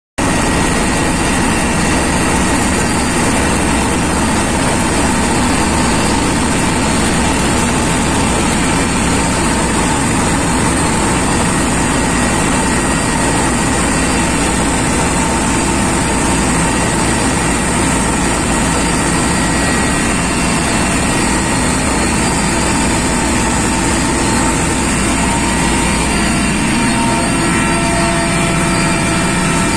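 Helicopter cabin noise in flight: engines and rotor running steadily, a loud even drone with a constant high whine over it.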